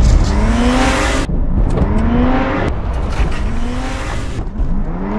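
A car engine revs up about four times in a row, each time climbing in pitch before it drops back. The car is a remotely driven sedan under hard throttle as it heads over the edge.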